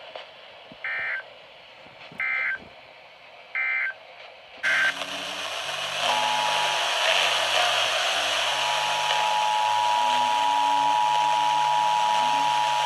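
Emergency Alert System SAME data: three short screeching bursts of digital code, the end-of-message signal closing a weather radio warning. A steady hiss then comes in, and the two-tone EAS attention signal starts about six seconds in, growing louder about two seconds later and holding steady.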